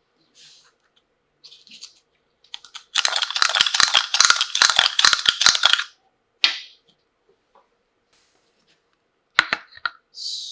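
Small hard plastic toy pieces clicking and clattering as they are handled: a rapid run of clicks for about three seconds, then two single sharp clicks.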